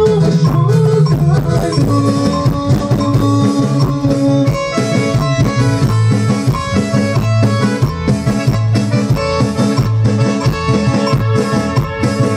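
Loud dance music with guitar and a steady drum beat, played for dancing at a party.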